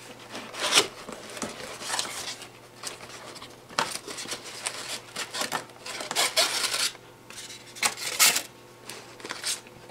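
Cardboard box and polystyrene foam packing being handled: irregular scraping and rubbing with a few light knocks as the box is opened and a foam sheet is pulled out.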